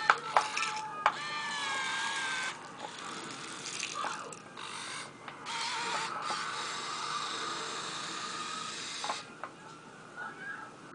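Electric drive motors and gearboxes of a Kyosho Komatsu radio-controlled excavator whining in several short runs, the longest about three seconds, as the arm and bucket move and the upper body slews round. Sharp clicks come as some of the motions start and stop.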